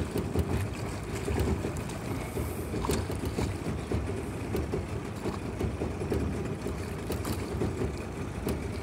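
Steady low rumble on a small fishing boat on the river, with scattered faint clicks.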